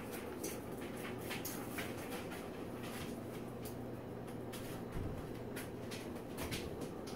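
Salt shaker being shaken over pork steaks in a foil pan: faint, irregular ticks and patters over a steady low hum.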